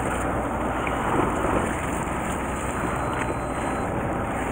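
Steady wind on the microphone over open sea, with a boat engine's low hum running underneath.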